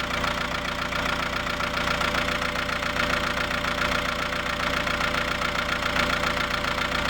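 Toyota Grandia's 2KD four-cylinder common-rail diesel idling steadily with its diesel clatter, running again after a cranking no-start that followed a snapped timing belt and a top overhaul.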